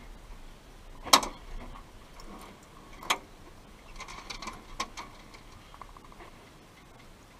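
A few sharp cracks or clicks: two loud ones about two seconds apart, the first the louder, then a quick cluster of fainter clicks.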